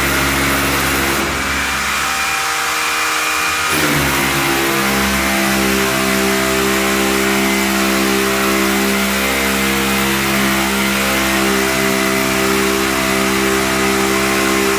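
A motor-driven machine running steadily with an engine-like hum, its pitch shifting about four seconds in.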